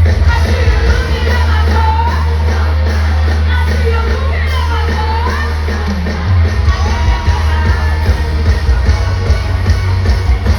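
Loud live pop music over a concert sound system, with a heavy bass line and a singing voice gliding over it; the bass changes from a held note to a pulsing beat about six seconds in.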